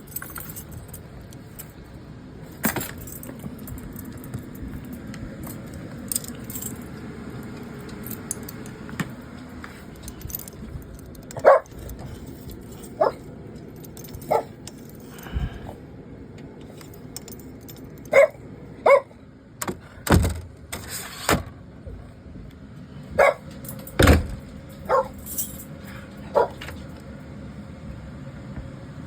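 Dog giving a dozen or so short, sharp barks scattered through, most of them in the second half and the loudest about eleven seconds in, over a faint metallic jingle.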